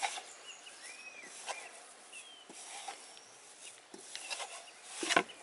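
A bare hand squishing and kneading a wet curd-and-spice masala paste against the inside of a metal bowl, with soft scattered clicks and squelches. A few faint high chirps sound in the background.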